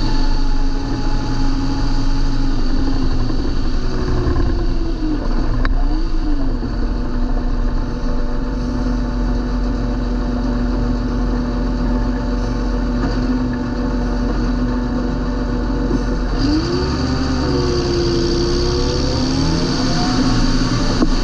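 John Deere 8320 tractor's diesel engine running steadily under way, its note twice dipping and rising again briefly as engine speed changes.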